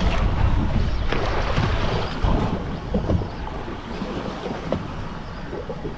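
Wind buffeting the microphone over choppy sea, with water slapping and washing against the boat's hull; it eases a little about halfway through.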